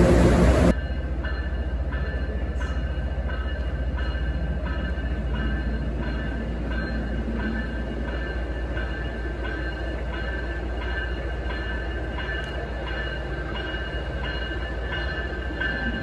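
Train pulling slowly into a station, with a steady low rumble under a ringing bell that strikes evenly about twice a second. In the first second a louder train sound cuts off abruptly.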